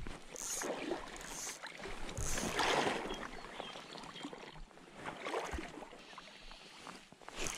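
Water sloshing and splashing around an angler wading in shallow water, with a stronger surge about two to three seconds in and a few short swishes.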